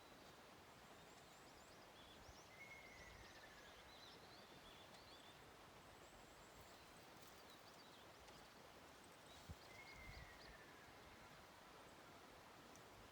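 Ruddy kingfisher calling twice, a faint trill that falls in pitch, the calls about seven seconds apart, while other small birds chirp higher up. A soft low knock comes just before the second call.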